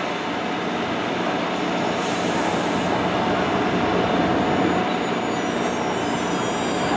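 GO Transit bilevel passenger coach rolling slowly past, a steady rumble and hiss of steel wheels on the rails that grows slightly louder. A brief hiss about two seconds in, and faint high wheel squeal begins near the end.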